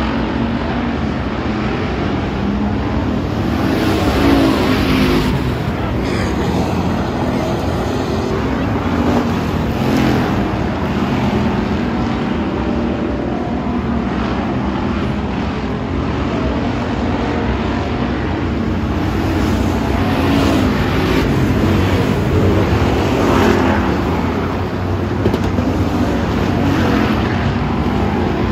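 Several dirt-track hobby stock race cars' engines running at low speed and idling together: a steady, loud rumble with pitches that rise and fall as engines rev.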